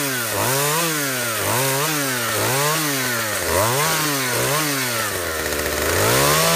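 Chainsaw engine revved up and down over and over, its pitch rising and falling about twice a second, settling lower for a moment about five seconds in before revving up again.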